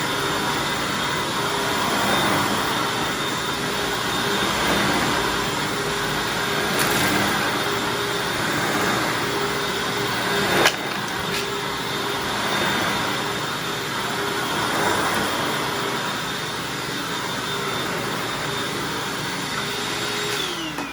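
Hoover Anniversary upright vacuum cleaner running at a steady whine while vacuuming up human hair, with one sharp click about halfway through. Near the end the motor is switched off and winds down in a falling whine.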